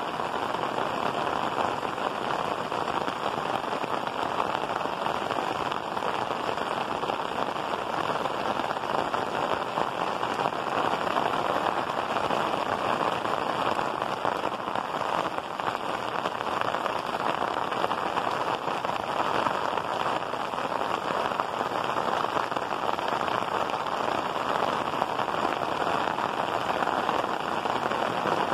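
Heavy rain falling steadily on clay-tiled rooftops, an even, unbroken patter.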